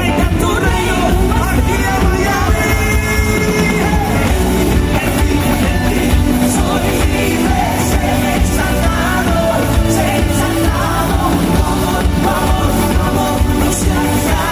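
Live band music: several singers singing together in Spanish over drums and electric guitar, amplified through a stage sound system.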